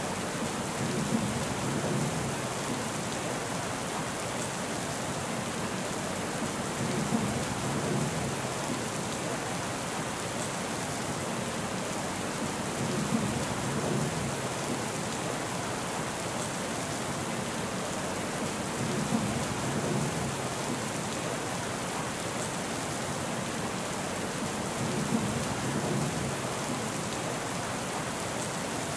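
Steady rain falling, an even hiss of drops on surfaces. A low rumble swells briefly about every six seconds, five times in all.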